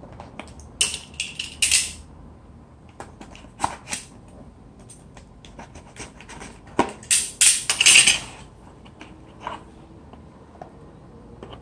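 Cardboard shipping box being opened and handled by hand: flaps scraping and rustling in two louder bursts, one about a second in and a longer one around seven to eight seconds, with light taps and knocks between.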